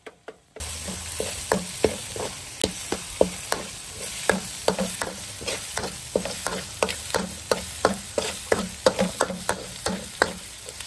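Chopped garlic, shallots and dried chilli sizzling in oil in a steel wok, with a metal spatula scraping and tapping against the pan about three times a second. The sizzle comes in suddenly about half a second in.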